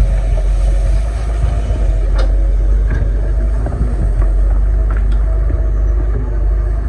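Excavator's diesel engine running steadily, with a low rumble and a couple of short knocks.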